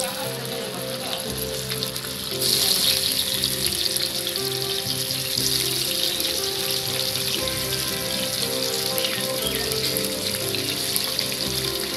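Rui fish steaks sizzling in hot oil in a non-stick frying pan as pieces are laid in, the sizzle growing louder about two and a half seconds in and then holding steady.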